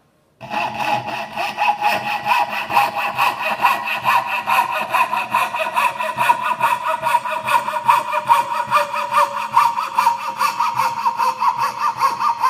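Coping saw cutting a curve in a thin wooden board: rapid, even back-and-forth strokes, several a second, with a steady ringing note over the rasp. The sawing starts about half a second in.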